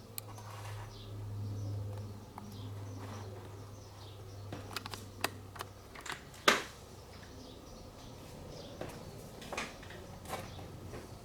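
Scattered sharp clicks and taps of small parts and tools being handled, the loudest about six and a half seconds in, over a steady low hum.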